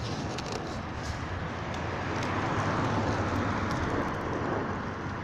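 A road vehicle passing close by: its tyre and engine noise swells to a peak about three seconds in, then fades.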